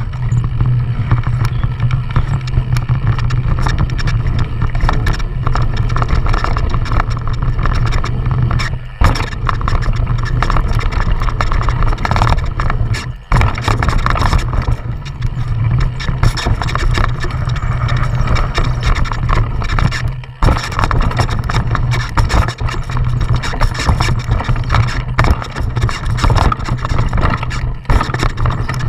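Onboard sound of a downhill mountain bike descending a rough dirt trail: continuous wind buffeting on the handlebar camera's microphone with the bike rattling and clattering over bumps. Brief lulls come about 9, 13 and 20 seconds in.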